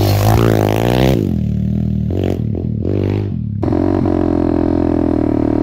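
A 190 cc pit bike's single-cylinder four-stroke engine revving. Its pitch rises and falls in the first second, then comes in a few short throttle blips, and from about three and a half seconds in it runs steadily.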